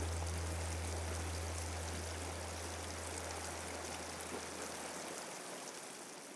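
Shallow rocky mountain stream running over stones: a steady rushing water noise. A low held bass note of background music lies under it and fades out about five seconds in, and the whole sound fades down at the end.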